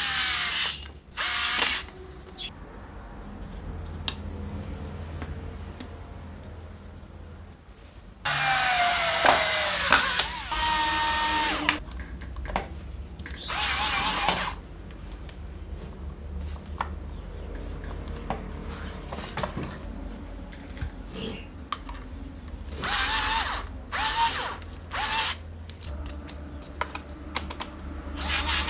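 Small electric screwdriver running in short bursts, driving the screws that hold the handle housing of a Hitachi rotary hammer drill together. In one burst the motor whine falls in pitch as the screw tightens.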